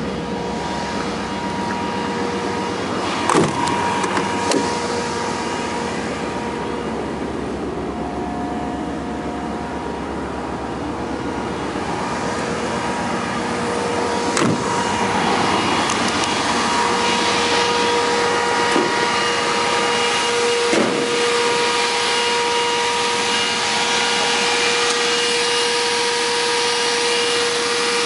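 Steady whirring hum of the car's electric fan running, growing louder about halfway through, with a few light knocks and clicks.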